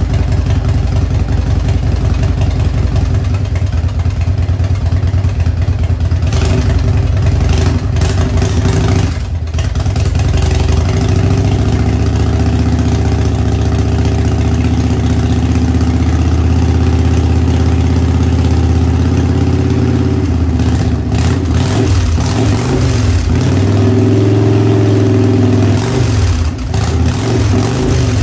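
Carbureted 1994 Harley-Davidson Evolution V-twin running through its Samson exhaust, idling and being revved on the throttle, with the pitch rising and wavering several times in the second half. The engine is running again after a no-spark fault had kept it from starting.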